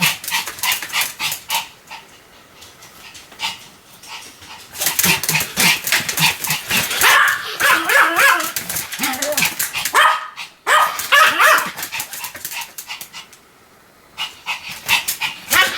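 Pomeranian barking in rapid volleys of sharp, high barks, with two short lulls partway through.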